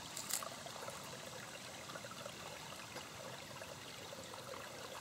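Shallow woodland stream trickling steadily over rocks, faint and even, with one brief click just after the start.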